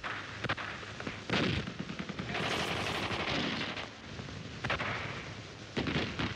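Gunfire: scattered sharp single shots, some coming in quick runs like machine-gun bursts.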